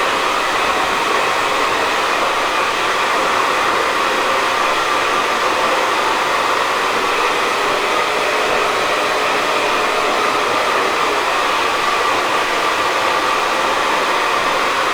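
Hair dryer blowing steadily close by, with an even motor hum and no change in speed.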